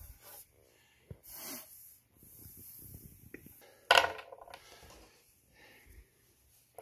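Handling noise of small rubber slugs being picked up and moved about on a wooden surface: rubbing and scraping, with one sharp knock on the wood about four seconds in.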